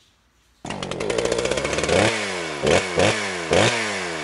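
Small petrol engine cutting in suddenly about half a second in, running at high revs and then blipped about four times, the pitch jumping up and sliding back down after each blip.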